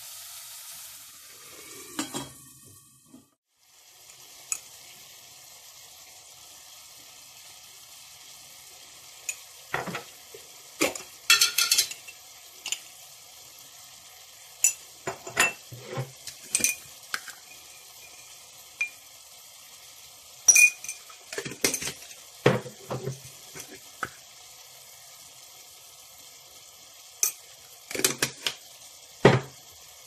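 Food sizzling in a stainless steel pot, with the clinks and knocks of a metal spoon against the pot as it is stirred. Onion fries with a louder hiss for the first few seconds, then a quieter steady sizzle runs under scattered bunches of clinks.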